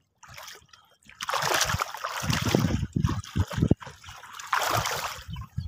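Shallow water splashing and sloshing as a man wades and works a gill net by hand. It starts about a second in and comes again in a shorter burst near the end.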